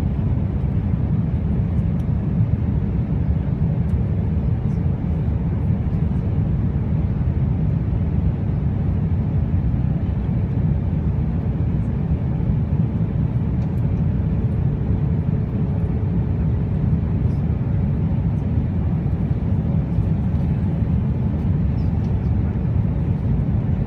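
Airliner cabin noise: the steady low rumble of jet engines and rushing air heard from inside the passenger cabin, with no change in pitch or level.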